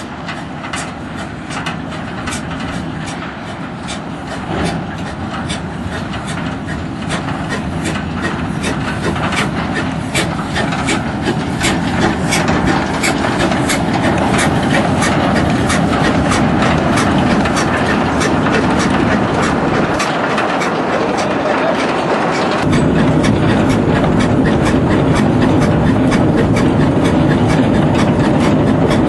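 Narrow-gauge Henschel steam locomotive hauling a long train of steel skip wagons, with dense rattling and clicking from the wagons' wheels and couplings over the track. It grows steadily louder, then turns suddenly louder and deeper about three quarters of the way through.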